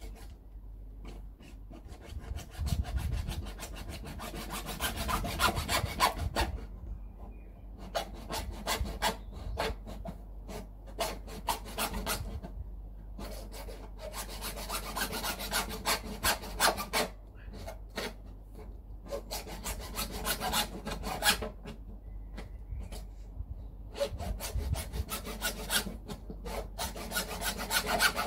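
Hacksaw cutting through a 110 mm PVC waste pipe by hand, in quick back-and-forth strokes. It stops briefly every few seconds before sawing on.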